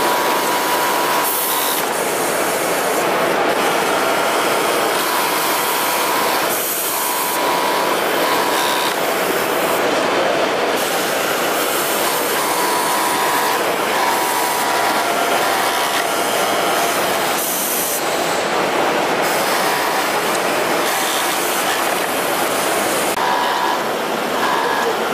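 Kingtex direct-drive flatbed interlock sewing machine running, its motor whine starting and stopping every second or two as it sews in short runs. Underneath is a steady, loud clatter of machinery, with a sharp click now and then.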